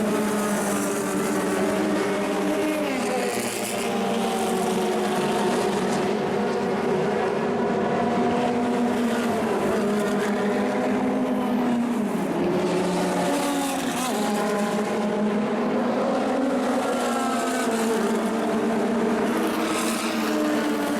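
1960s cigar-shaped formula racing car engine running hard at high revs. Its pitch falls sharply twice, a few seconds in and again about halfway through.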